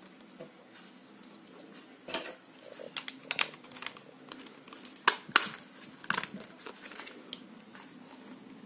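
Hard plastic clicks and taps from handling a FlySky FS-GT3C radio transmitter as its battery pack is seated and the battery cover is fitted back on: a scatter of sharp clicks, loudest around five seconds in.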